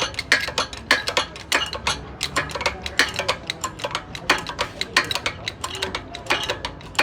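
Rapid, irregular metallic clinks and taps, several a second: metal tools striking and rattling against metal parts.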